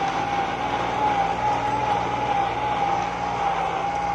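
New Holland 5620 tractor engine running steadily under load while pulling a disc harrow through wet soil, with a steady, slightly wavering high whine over the engine note.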